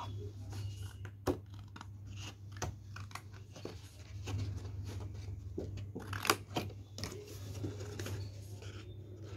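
Scissors snipping through a sheet of paper in an irregular run of short cuts, with the paper rustling as it is turned; the sharpest snip comes about six seconds in. A steady low hum lies underneath.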